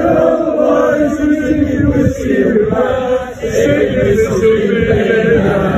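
A crowd singing together in unison, many voices held on long notes, with a brief drop about three seconds in.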